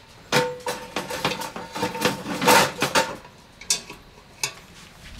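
Empty cast-iron Dutch oven being set down into a steel fire ring over charcoal briquettes: a series of metal clanks and scrapes, the first knock leaving a ringing metal tone. Near the end, two light clinks of the pot's wire bail handle.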